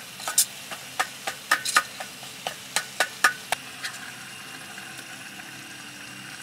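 A spoon stirring and scraping curry in a metal cooking pot on a camping gas stove, with irregular sharp taps and scrapes. About four seconds in the strokes stop and only a steady faint hiss of the stove and the cooking food remains.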